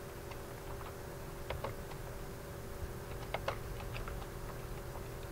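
Computer keyboard typing: scattered, light key clicks as an address is typed, over a faint steady hum.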